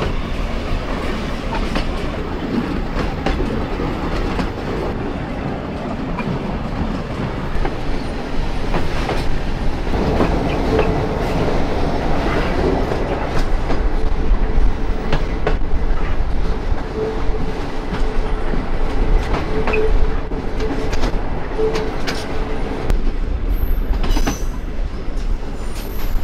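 Railway carriages running along the track, heard from an open window: a steady rumble with irregular clicks of the wheels over the rails. From about ten seconds in, a thin wheel squeal comes and goes.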